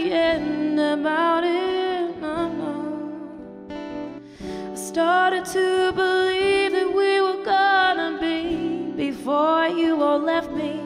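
A woman singing a song live into a handheld microphone, with long held notes, accompanied by an acoustic guitar. Her voice drops out briefly about four seconds in.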